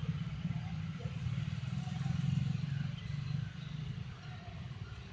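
Superfast express train running through a station: a low rumble with fast flutter that drops off about three and a half seconds in.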